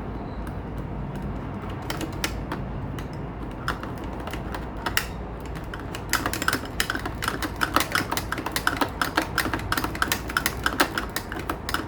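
Sharp plastic clicks and taps from a toy football game being handled, scattered at first, then coming thick and fast and irregular through the second half before stopping just before the end.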